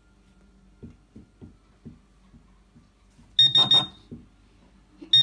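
Garrett Pro-Pointer AT pinpointer alerting: a quick run of high-pitched beeps with a pulsing buzz from its vibration, set off as a silver ring comes within detection range. A few soft taps of the ring on the tabletop come before it, and the beeping starts again near the end.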